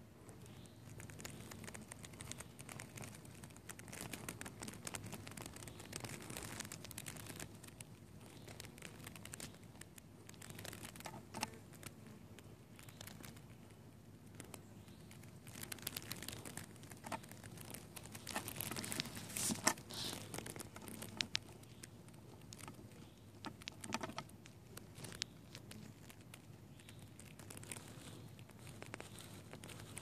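Irregular rustling, crinkling and clicking handling noise, busiest about halfway through, over a faint low hum from a honeybee colony clustered inside a top bar hive.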